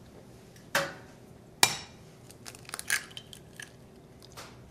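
An egg cracked against the rim of a ceramic dish: two sharp knocks about a second apart, the second the louder, then a few light clicks and crackles as the shell is pulled apart.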